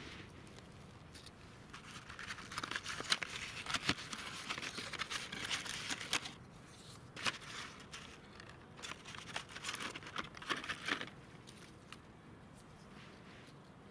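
Cardboard box and paper-wrapped firecrackers being handled: crinkling and rustling with many small clicks, stopping about eleven seconds in.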